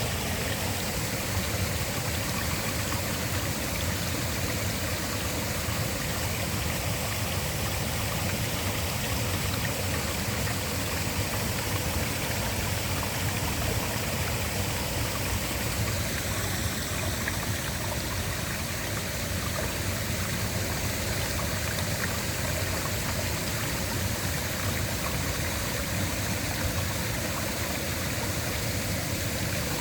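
Waterfall rushing steadily: an even, unbroken wash of falling-water noise from a low rumble up to a high hiss.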